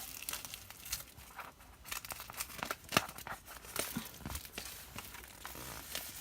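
Plastic seal wrapping being torn and peeled off a diary, crinkling with scattered sharp crackles, the sharpest about three seconds in.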